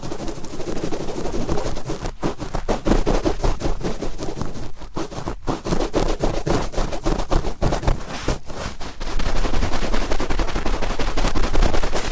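Cotton swab rubbed and twisted hard inside a binaural microphone's ear for ASMR ear cleaning: a close, rapid scratchy crackling, louder in the last few seconds.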